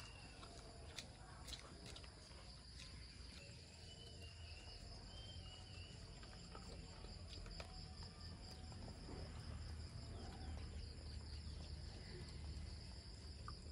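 Faint, steady, high-pitched insect chorus, with a low rumble underneath that swells about ten seconds in.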